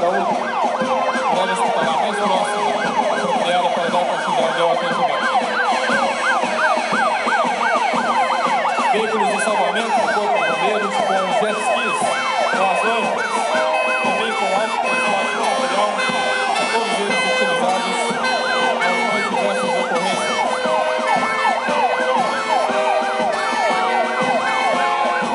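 Several fire brigade vehicle sirens sounding together as the vehicles drive past: fast rising-and-falling yelp sirens overlapping, joined about ten seconds in by a stepped two-tone high-low siren.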